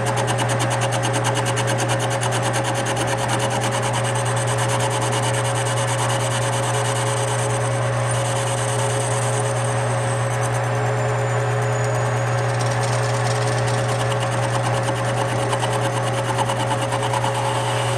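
Metal lathe running under power, turning an offset tool-steel cam held in a four-jaw chuck. It gives a steady low hum with a constant higher whine and a fine, rapid, even pulsing, unchanged throughout.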